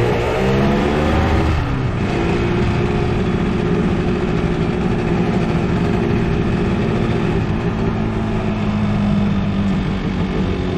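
Yamaha RD 350 two-stroke twin engine heard from onboard as the bike rides slowly. The revs climb for the first second and a half, drop sharply, then hold a steady, lower note.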